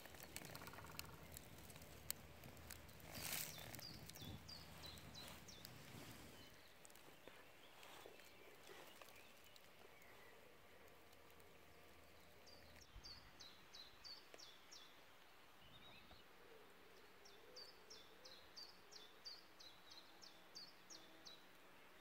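Quiet outdoor ambience: a few rustles and crunches of footsteps on dry grass and leaf litter in the first seconds. Later a songbird sings two phrases of short, high, falling notes, about three a second.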